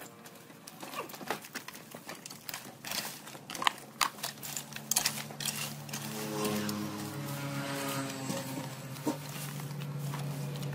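Sharp clicks and snaps for the first few seconds, then a small petrol engine's steady drone comes in about halfway through and grows louder toward the end.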